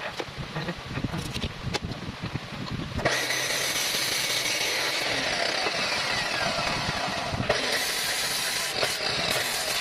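Abrasive cut-off saw cutting through a metal tube. It starts suddenly about three seconds in and holds a steady, loud grinding that dips briefly past the middle. Before it come light handling clicks.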